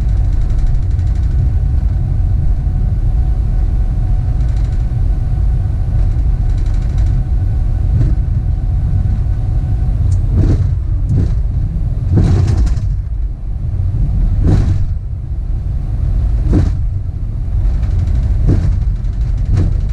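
Airbus A380 rolling out on the runway after landing, heard inside the cockpit as a loud, steady low rumble. A faint steady whine stops about halfway through, and after that a series of thumps comes every one to two seconds.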